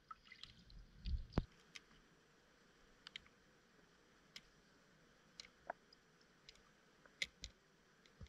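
Underwater pond ambience picked up by a camera in a waterproof housing: faint, irregular sharp clicks and ticks over a low hiss, with a louder, duller knock a little over a second in.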